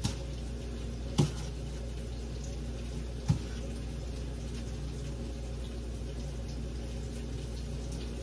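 Steady hiss of fish frying in oil in an electric deep fryer, with a low hum beneath and three sharp knocks, one at the start, one about a second in and one just after three seconds.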